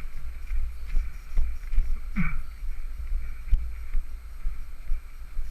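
Low, uneven wind rumble buffeting the microphone, with a brief falling voice-like sound about two seconds in.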